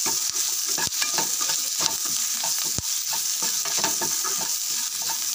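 Chopped onions frying in hot oil in a kadai with a steady sizzle and crackle, stirred with a steel spatula that scrapes the pan and knocks against it sharply twice. The onions are frying well, close to done before the cooked drumstick leaves go in.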